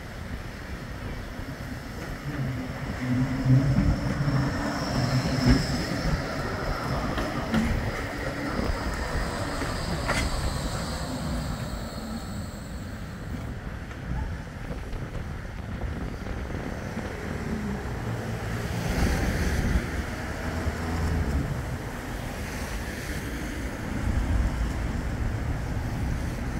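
Bombardier Flexity 2 tram arriving and slowing to a stop, its wheels running on the rails and its motors giving a high whine that fades as it halts.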